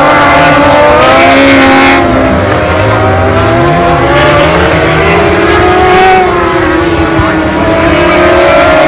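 Several superbike racing motorcycle engines at high revs as a pack of bikes passes through a corner, their pitches overlapping and rising and falling with throttle and gear changes.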